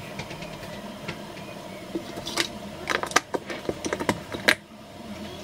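Stew simmering in a lidded pan on a gas burner, a steady low hiss, broken by a quick run of irregular sharp clicks and knocks from about two seconds in to about four and a half seconds.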